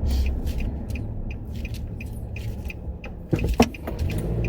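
Steady low rumble of road noise inside a moving car's cabin, with faint light ticks and a short sharp knock about three and a half seconds in.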